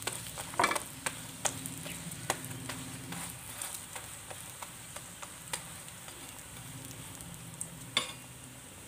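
Keema-stuffed paratha frying in ghee in a pan on a low flame: a steady sizzle with scattered sharp clicks, the loudest one near the end.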